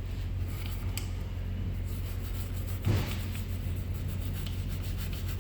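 A steady low mechanical hum with faint scattered clicks, and one louder knock about three seconds in.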